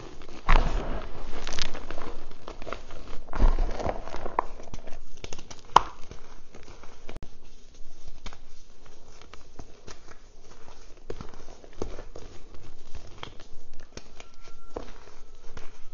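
Chunks of pink reformed gym chalk crunching and crackling as they are crushed between the hands, with crumbs and powder sifting back into a plastic tub. The crunching is loudest and densest in the first five seconds or so, then turns into lighter, sparser crumbling.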